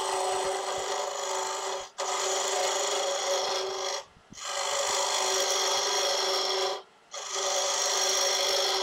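Small carbide tool hollowing out the inside of a wooden box blank spinning on a wood lathe: a steady scraping cut with a held tone through it, broken off briefly three times.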